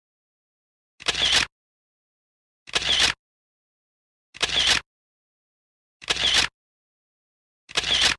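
An edited-in sound effect repeated identically five times, one about every 1.7 seconds, each lasting about half a second, with dead silence between them.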